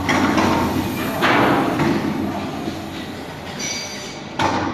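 Factory floor machinery noise: a steady low hum with harsh, hissing, grating bursts of noise, the loudest at the start and about a second in.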